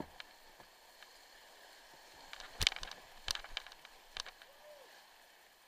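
Kayak paddle strokes splashing through a small rapid over a faint, steady rush of moving water, with a flurry of sharp splashes and knocks about halfway through and one more shortly after.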